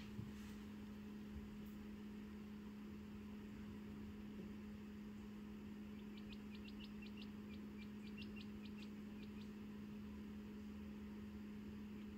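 A steady low electrical hum, with a quick run of faint, high peeps from a newly hatched quail chick about six seconds in, around four a second for some three seconds.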